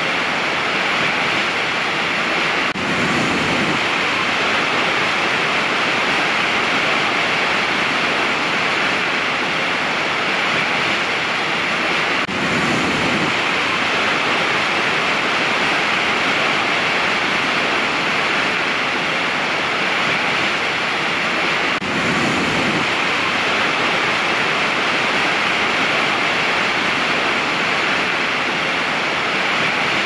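A large waterfall close up: a loud, steady rush of heavy falling water and spray.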